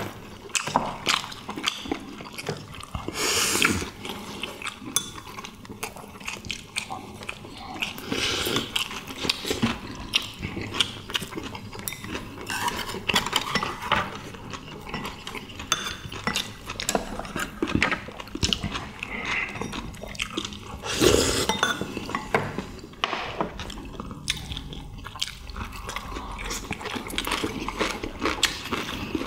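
Several people eating: chewing, with chopsticks and spoons clicking against ceramic bowls and dishes, and a few louder bursts of eating noise.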